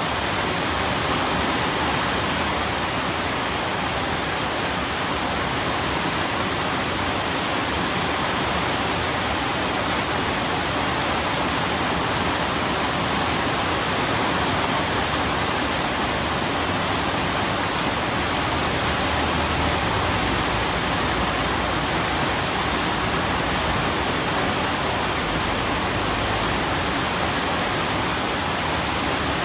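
Steady, even rain noise, a continuous hiss with no distinct drops, thunder or changes.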